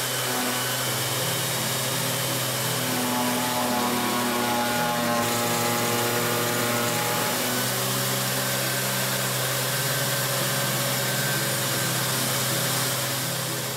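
Festool sander running steadily with its dust extraction, polishing wood samples pressed against a 2000-grit abrasive disc: a continuous motor hum with a few steady tones over an even hiss.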